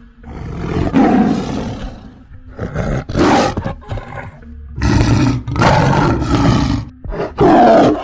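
A large animal roaring about four times in a row, long rough roars with short pauses between them, played as the call of an extinct animal.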